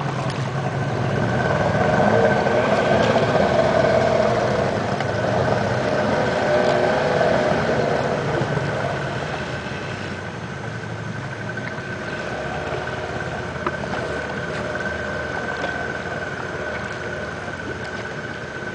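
Outboard motor of a wooden river longboat running slowly with a steady hum, louder in the first half and easing off after about nine seconds.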